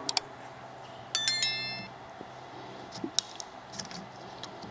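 A quick double click, then about a second in a bright chime sound effect: several ringing tones that start together and die away within about a second, the notification-bell ding of a subscribe-button animation. A few faint taps follow.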